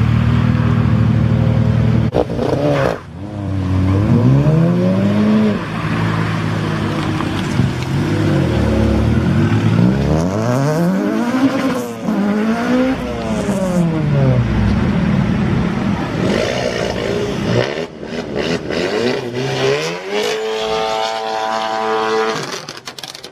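Performance car engine with a loud exhaust, revved up and down several times so the pitch climbs and falls. Near the end it climbs again and holds a high, steady note.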